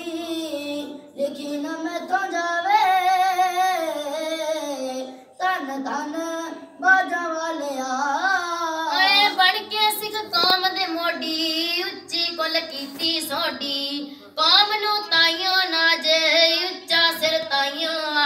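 Children singing, a girl's voice clearest, in sung phrases with short breaks between them and no instrument heard.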